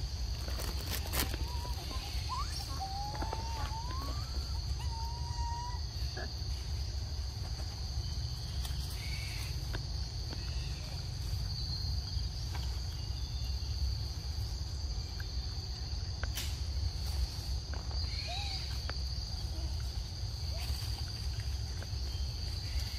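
Forest ambience: a steady high-pitched insect drone, with a few short whistling calls in the first few seconds and again briefly later, scattered light clicks and rustles, and a low rumble underneath.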